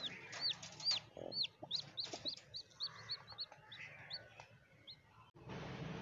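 Chicken chick peeping from the nest: a run of short, high cheeps that come quickly and then space out, with a low cluck from the broody hen about a second in. Near the end the sound cuts abruptly to a steady hiss.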